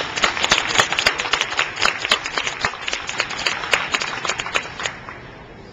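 Audience applauding in a large gymnasium, the clapping dying away about five seconds in.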